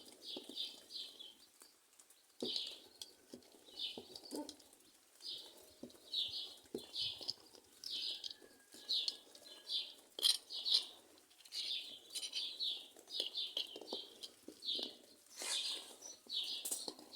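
Small birds chirping over and over, short high chirps about twice a second, with scattered light taps and knocks.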